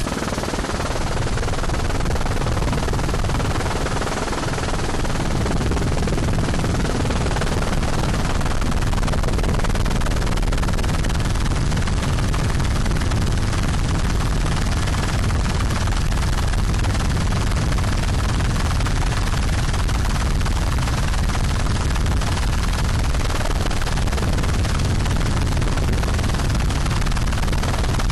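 Steady, dense, rattling noise of an aircraft's engine and rushing air, heard from on board during a low filming flight.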